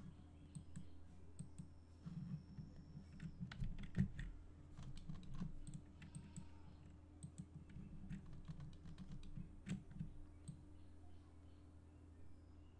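Computer keyboard and mouse clicks: irregular light tapping and clicking, with one louder knock about four seconds in, over a steady low hum.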